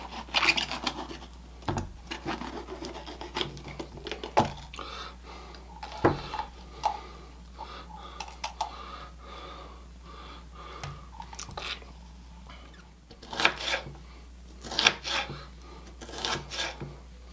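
Chef's knife cutting a red bell pepper on a wooden cutting board: irregular knife knocks against the board, then quicker runs of dicing strikes in the last few seconds.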